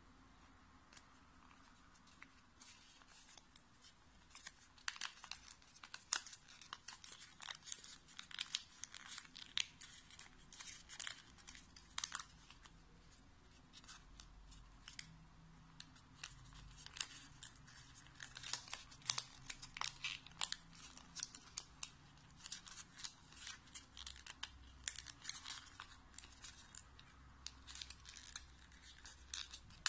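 Origami paper being folded and shaped by hand: quick, irregular crinkles and crackles of creased paper, starting a couple of seconds in and going on in clusters.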